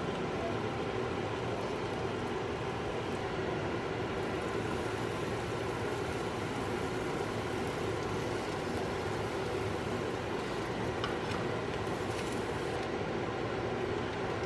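Steady, even hiss and hum from a grilled cheese sandwich cooking in a nonstick frying pan on the stove, with a few faint clicks near the end.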